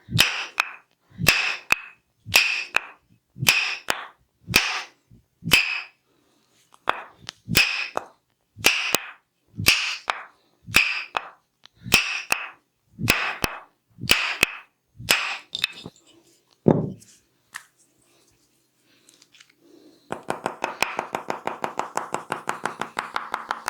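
Tok Sen massage strikes, a wooden mallet knocking on a wooden wedge, landing about once a second. Each strike is a quick click followed by a short ringing crack at the same bright pitch. After a pause, a fast run of light taps starts about twenty seconds in.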